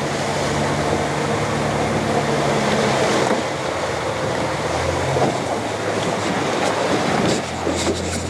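A fishing boat's engine running under way, with water rushing along the hull and wind over the microphone; the engine note changes a few seconds in.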